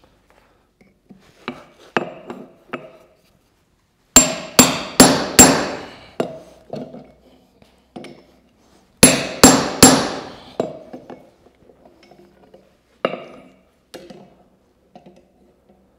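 Hammer blows on a red-hot steel bar lying on an anvil, the anvil ringing after each heavy strike. A few light taps come first, then a quick run of four heavy blows about four seconds in and three more about nine seconds in, with a few scattered lighter blows near the end.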